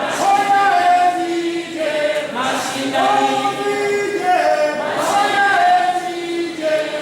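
A group of voices singing an unaccompanied chant, a short phrase repeated about every two and a half seconds.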